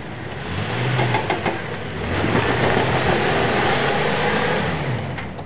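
Jeep Wrangler engine revving under load as it climbs an off-road obstacle. The revs rise about a second in, build from about two seconds, and ease off near the end.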